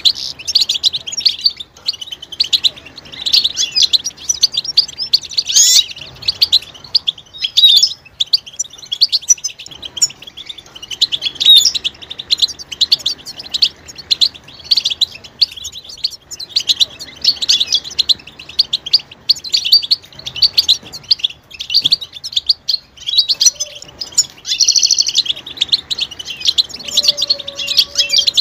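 Several European goldfinches twittering and calling together: a dense stream of quick, high chirps and trills, with short lulls now and then.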